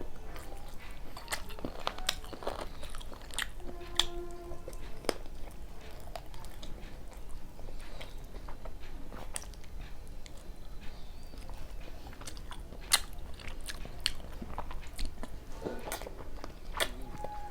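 Close-miked eating sounds of a person chewing luchi and spicy chicken curry, with wet mouth clicks and occasional crunchy bites; the sharpest clicks come about 4 and 13 seconds in.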